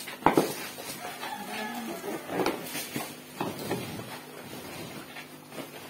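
Woven plastic sacks rustling and crinkling as their tied tops are handled and opened, with a sharp snap just after the start and more rustles in the middle.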